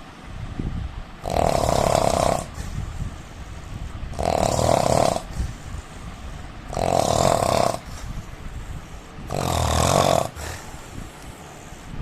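A man snoring in his sleep: four loud snores about two and a half seconds apart, each lasting about a second, with softer breathing sounds between them.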